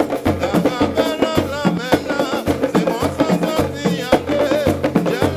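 Live Guadeloupean percussion ensemble playing: a low drum pulse about twice a second under hand drums and sharp clacks from plastic jam blocks, with a wavering sung line above.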